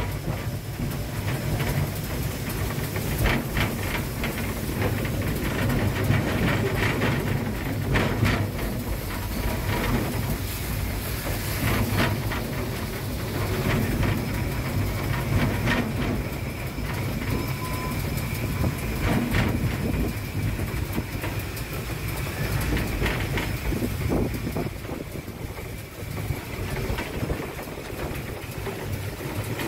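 Beyer Garratt narrow-gauge steam locomotive running, heard from the footplate: a steady rumble with occasional sharp clicks from the wheels on the track.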